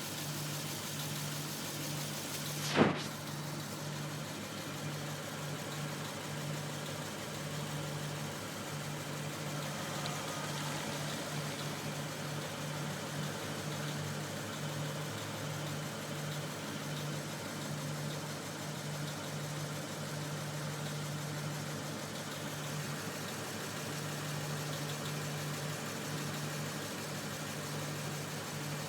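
Lexus IS F's 5.0-litre V8 idling steadily with a knock that the owner blames on faulty valve springs. A single sharp click stands out about three seconds in.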